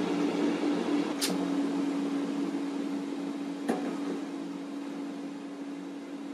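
Ninja Foodi dual-zone air fryer running, its fan giving a steady hum with a low held tone under a wash of air noise, a little quieter in the second half. A short sharp tick about a second in and a click near four seconds.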